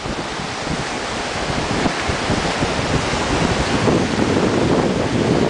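Ocean surf washing onto the beach, a steady rush that swells slightly louder toward the end, with wind noise on the microphone.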